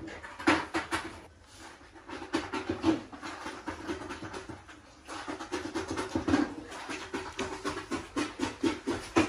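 A one-week-old American Bully puppy making quick, short breathy sounds, several a second, some louder than others.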